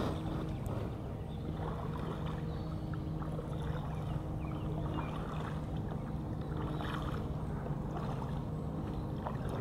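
Kayak paddle strokes dipping and splashing in river water every couple of seconds, over a steady low hum.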